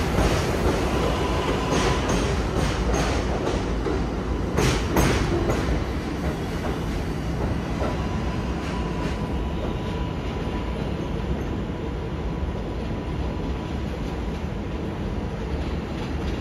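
An R188 subway train on the 7 line runs along the track, its wheels clacking over rail joints in a run of sharp clicks during the first six seconds, over a dense steady rumble with a faint thin whine. The clicks then stop, and the rumble carries on, slowly growing quieter.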